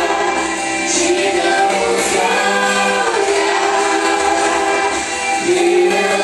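A group of voices singing a worship song with an instrumental backing, held notes changing every second or so.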